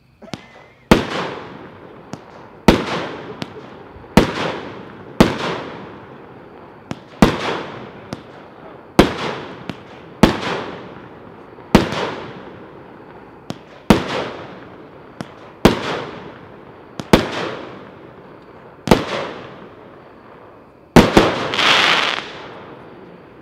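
A 16-shot Epic 'Beast' consumer fireworks cake firing: a string of sharp bangs about every second and a half, each trailing off. It ends with two bangs close together and a loud crackling burst about 21 seconds in.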